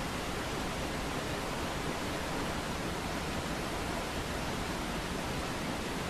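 Mountain waterfall: a steady, even rush of falling water that does not change.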